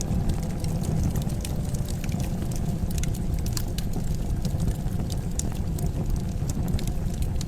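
Wood fire crackling in a fireplace, with sharp, irregular pops and snaps over a steady low rumble.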